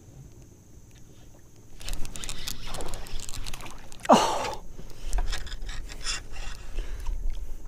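Movement and handling noise in an aluminium jon boat: rustling and knocks starting about two seconds in. About four seconds in comes a loud short swish that falls in pitch.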